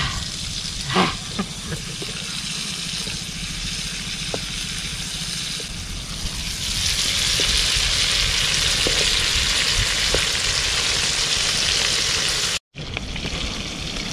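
Whole prawns frying in hot oil in a wok, sizzling steadily; the sizzle grows louder from about six and a half seconds in and breaks off for a moment near the end.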